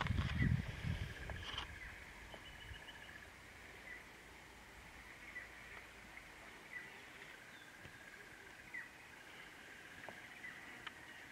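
Faint bush ambience: birds give short chirps about once a second over a steady high trill. In the first second or two there is a low wind rumble on the microphone, which then dies away.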